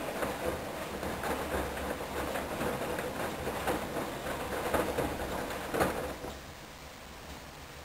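Hoover DYN10124DP front-loading washing machine on its main wash with a full 10 kg load of sheets: the drum turning, with water and wet laundry sloshing and thudding inside. About six seconds in, the tumbling stops and only a quieter steady hum remains.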